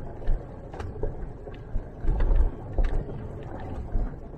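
Car with a rooftop tent creeping along a rough, narrow forest trail: a low rumble broken by several thumps, with sharp knocks as branches hit the body and tent.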